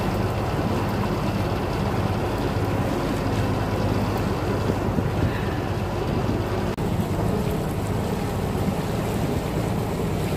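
Motorboat engine running steadily under way, a constant low hum, with wind buffeting the microphone and water rushing past the hull.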